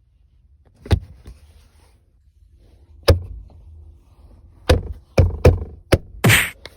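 Plastic center-console trim pieces of a 2015 Chevy Sonic knocking and clicking as they are handled and pressed into place: about six sharp knocks, several in quick succession in the second half, then a short scrape near the end.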